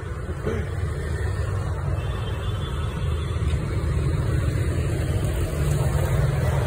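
Steady low rumble of city street traffic, motorbikes and a bus running on the road, growing slightly louder toward the end.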